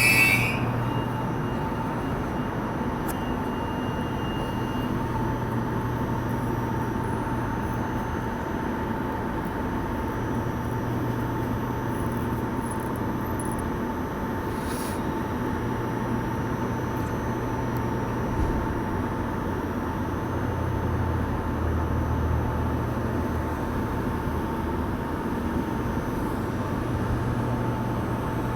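Train rolling steadily past on the track: a continuous rumble with a constant faint whine and a low hum.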